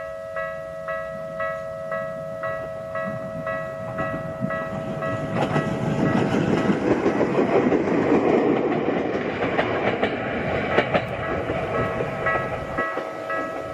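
Japanese level-crossing alarm dinging about twice a second while a Bessho Line electric train passes over the crossing. The train's rumble and wheel clacks build to a peak about halfway through and fade, and the alarm keeps ringing.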